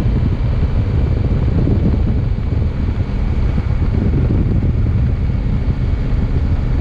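Wind rushing over the microphone on a Honda Africa Twin parallel-twin motorcycle riding at road speed, with the engine running underneath; a loud, steady noise.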